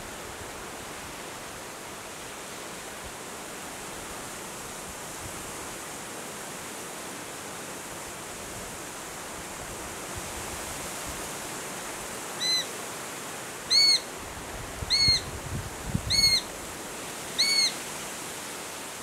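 Five high, thin, arched call notes spaced about a second and a quarter apart, starting past the middle, over a steady hiss: the begging calls of a Eurasian sparrowhawk fledgling.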